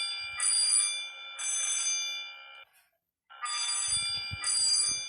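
Wheelock 4060-series fire alarm bell ringing in groups of three rings, with a short gap between the groups.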